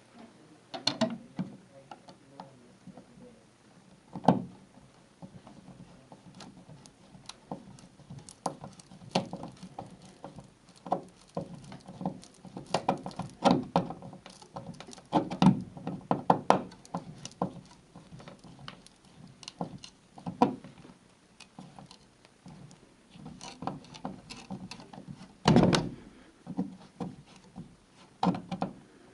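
Hands and tools working on a dimmer switch at the wall box, making irregular clicks, taps and knocks. There is a sharper knock about four seconds in and a heavier thud near the end.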